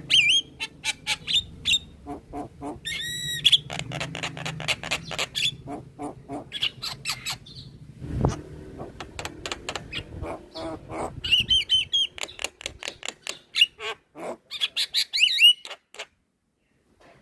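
Javan myna (jalak kebo) calling in a fast run of harsh clicks and chattering notes mixed with whistles, stopping about a second before the end. A low hum lies under the first part, and there is a single thump about halfway through.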